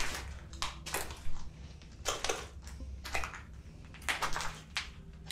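Footsteps crunching over rubble and broken shards on a debris-covered floor: a string of short, irregular crunches, about one or two a second.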